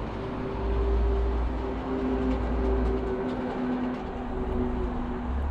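Steady rumble of road traffic passing along the roadway, with a low humming tone held for several seconds.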